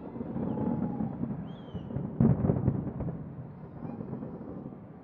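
Distant fireworks booming over the harbour, the bangs running together into a low rumble, with a louder cluster of bursts a little past two seconds in.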